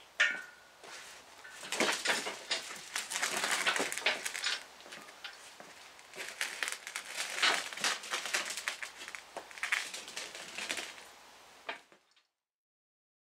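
Steel shop crane (engine hoist) being wheeled across a plywood floor: casters rolling and rattling, with clanks and scrapes from its frame, in several loud spells. The sound cuts off abruptly near the end.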